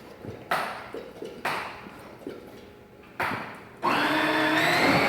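Three short sharp noises, then about four seconds in a steady high-pitched whine starts and runs loud: a Power Wheels ride-on toy's electric drive motor and gearbox driving.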